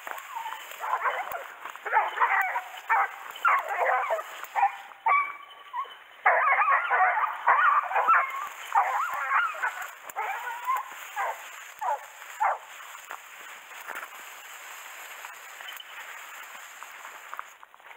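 Hunting hounds barking over and over in a long run of short calls, densest about halfway through and thinning out towards the end.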